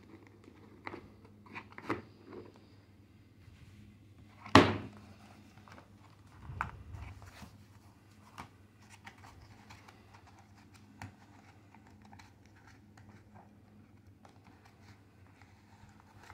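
A hard plastic pistol case being opened by hand: its plastic latches click, a loud sharp knock comes about four and a half seconds in, followed by a softer thump and small handling clicks against the case.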